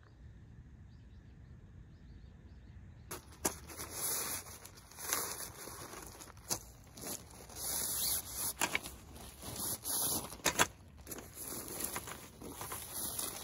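Handling noise from camping gear: fabric swishing and rustling with scattered sharp clicks and knocks, starting about three seconds in.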